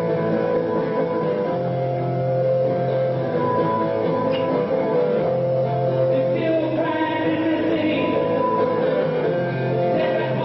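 Live music: acoustic guitars with a group of voices singing together in long held notes.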